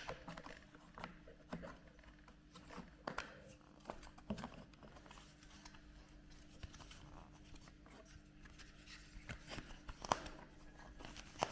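Small screwdriver prying the plastic retaining clips of a Logan/Largus heater blower fan housing: scattered faint plastic clicks and scrapes, with a few sharper clicks near the end as the cover comes free. A faint steady hum sits underneath.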